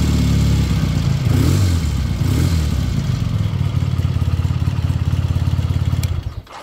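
A 1977 Triumph Bonneville T140V's parallel-twin engine idling, its revs briefly rising and falling about a second and a half in, then switched off near the end and dying away.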